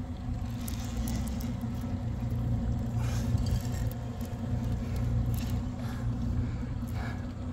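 Mercury outboard motor running steadily with a low, even hum, with a few brief sharper noises on top.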